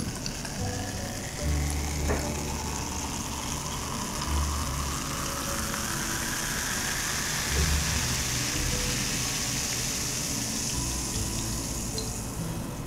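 Carbonated grapefruit Brother Soda poured from a can into a tall glass, fizzing steadily, with a slowly rising pitch; the pouring stops near the end.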